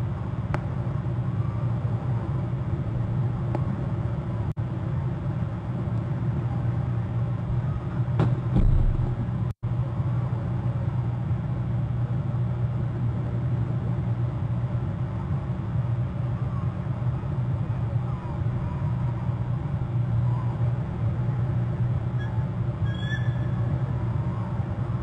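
Steady low rumble with faint, scattered chirps above it; the sound cuts out for an instant about ten seconds in, and a short higher call comes near the end.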